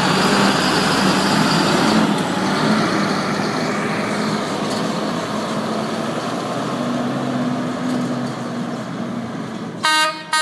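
Truck engine running, with road and tyre noise, easing off slowly. Near the end a horn blasts briefly.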